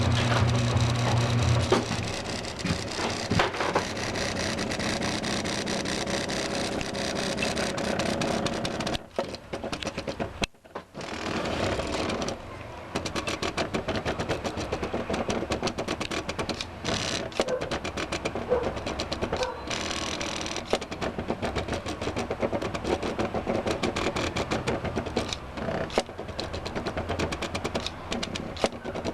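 Homemade two-and-a-half-axis CNC plotter built from electronic scrap, its motors chattering and buzzing as it moves. There is a steady hum for the first couple of seconds and a brief drop-out about ten seconds in.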